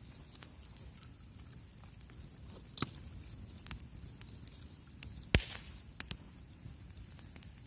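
Wood bonfire crackling: scattered sharp pops and snaps, the two loudest about three and five and a half seconds in.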